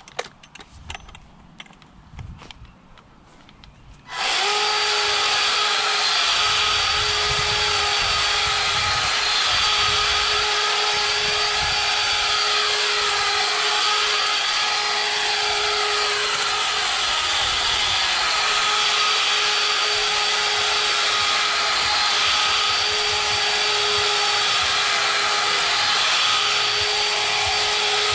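String trimmer starting abruptly about four seconds in, after a few faint clicks, then running at a steady high speed with a constant whine while cutting weeds.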